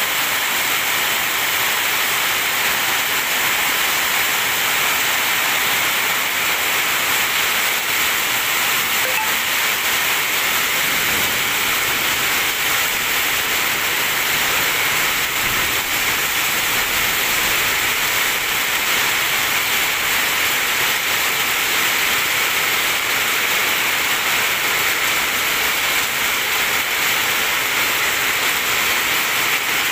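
Heavy rain falling on a sheet-metal roof and the wet street: a loud, steady hiss.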